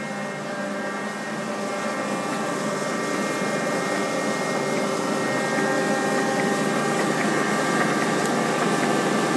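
Large Binns & Berry oil country lathe running under power, its gearhead and spindle drive giving a steady whine of several tones over a mechanical hum that grows gradually louder.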